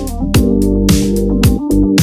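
Electronic background music: a drum-machine beat with a kick about twice a second, hi-hats, and held synthesizer chords.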